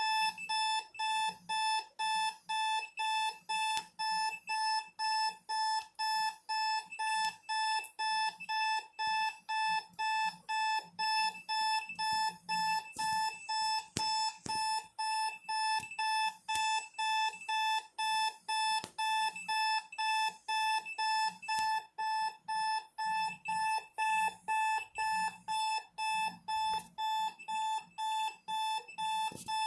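Electronic alarm beeping: one high-pitched beep tone repeating evenly, about two beeps a second, without a pause.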